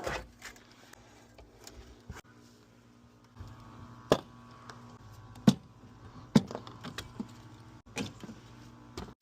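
Windshield replacement work: a handful of sharp, irregular knocks and clicks, the loudest about four and five and a half seconds in. A low steady hum joins about three seconds in.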